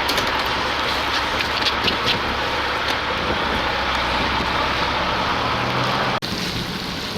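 Steady rushing noise of wind and heavy rain buffeting the microphone, with a low hum underneath. It cuts off abruptly about six seconds in and the sound changes.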